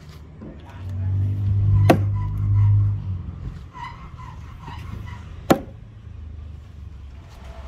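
A double bit axe struck twice into a wooden chopping stump, two sharp thuds about three and a half seconds apart. A low vehicle rumble swells and fades between them, the loudest sound, around the first strike.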